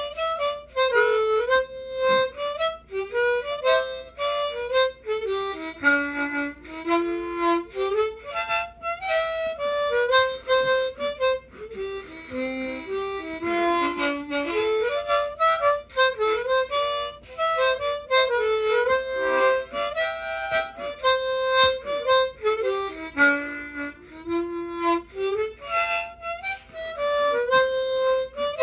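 An old, oversized harmonica with extra low notes, played solo: a traditional dance tune with a quick melody of short notes stepping up and down.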